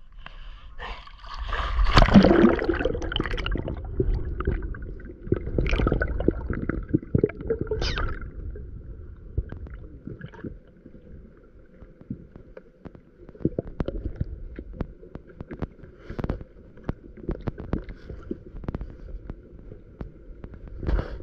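Muffled water gurgling and sloshing around a freediver's camera, with many scattered sharp clicks; the loudest gurgle comes about two seconds in, with smaller ones around six and eight seconds.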